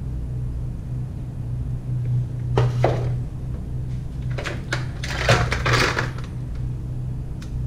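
Kitchen handling sounds: a metal tray of ice shifted, then a plastic cutting board and a chef's knife set down on a marble counter, giving a few short knocks and clatters, the loudest about five seconds in. A steady low hum runs underneath.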